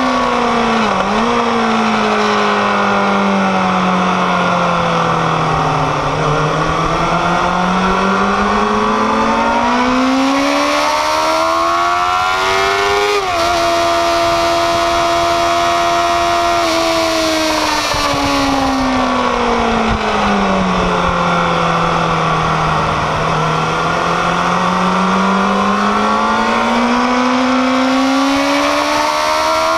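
Kawasaki ZX-6R's inline-four engine at speed on track, its note falling as the bike slows and climbing again under acceleration, twice over. About halfway it jumps briefly, then holds one steady note for a few seconds, with wind noise rushing over it.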